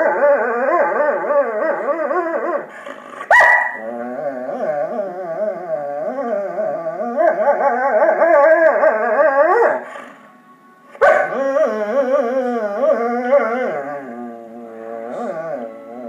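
Irish Setter howling in long, wavering moans, pausing briefly about three seconds in and again around ten seconds. Two sharp clicks come about three and eleven seconds in.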